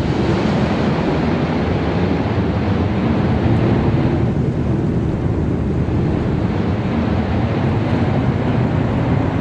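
Airbus A340 flight deck during liftoff and initial climb at takeoff thrust: a steady, loud rush of engine and airflow noise over a low rumble. The higher hiss eases slightly about four seconds in.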